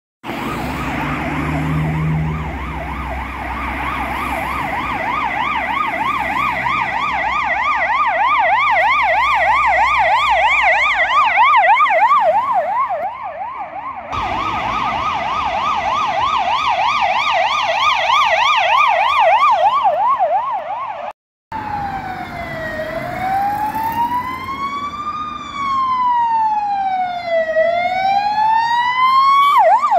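Emergency vehicle sirens on the fast yelp setting, with traffic rumble underneath in the first third. After a short break about two-thirds of the way through, the siren switches to a slow wail, rising and falling over about five seconds, then goes back to the fast yelp at the very end.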